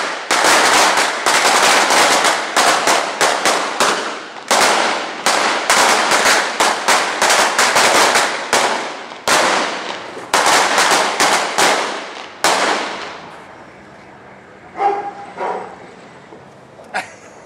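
A long run of firecrackers going off in rapid, loud bangs, several a second, that stops about twelve seconds in, followed by a few scattered, quieter pops.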